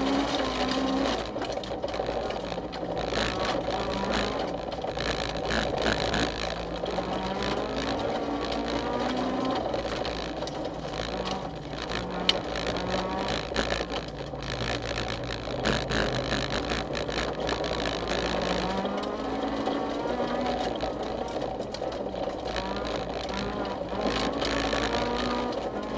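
Honda CRX rally car's engine heard from inside the cabin at speed on a gravel stage, its pitch climbing and dropping as it changes gear, over steady road and gravel noise. There is a single sharp knock about twelve seconds in.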